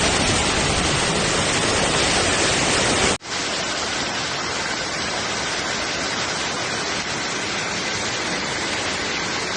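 Steady rush of water from a heavy downpour and floodwater. It breaks off for an instant about three seconds in and resumes a little quieter.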